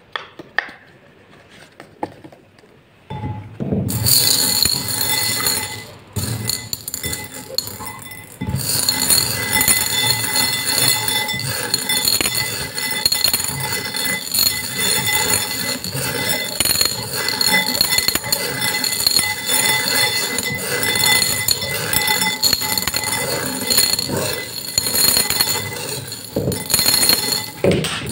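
Small hard beads clinking and rattling against each other and the sides of a glass bowl as hands scoop and stir them, with a bright ringing clatter that continues throughout. The first few seconds hold only a few soft clicks before the clinking starts.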